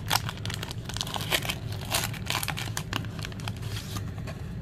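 Foil wrapper of a Pokémon trading card booster pack crinkling in rapid, irregular crackles as it is opened and handled.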